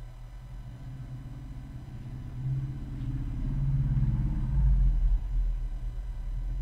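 Low mechanical rumble that builds to its loudest about four to five seconds in, then eases off.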